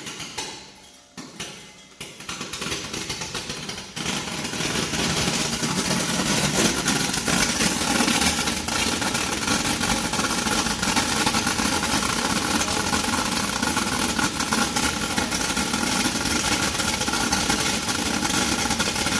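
A peppercorn colour-sorting machine and its air compressor running: a steady mechanical din with a fine crackle of peppercorns pouring through the chutes. It is quieter and uneven at first, grows louder over the first few seconds, and then runs steadily.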